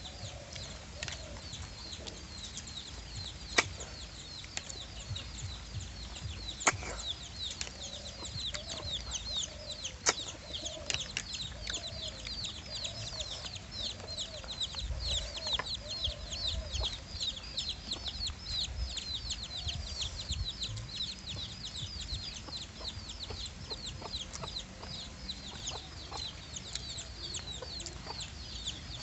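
Chickens clucking, with a dense run of short, high, falling peeps. A few sharp clicks stand out over them, about three and a half, six and a half and ten seconds in.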